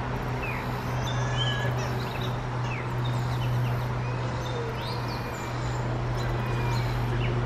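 Gray catbird singing: a loose, rambling run of short, varied notes, many sliding quickly in pitch, over a steady low hum.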